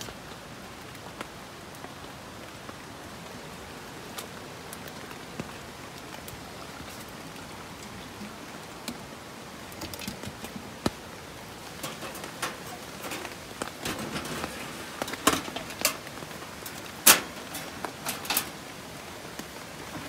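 Steady rain falling, with a scatter of sharp clicks and knocks in the second half as a plastic fuel can and a kerosene heater's fuel tank are handled. The loudest click comes a few seconds before the end.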